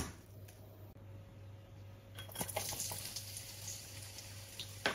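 Sliced red onion tipped into hot oil in a frying pan, starting to sizzle about two seconds in as a steady hiss with small crackles. A couple of sharper knocks near the end, as the bowl and onion pieces hit the pan.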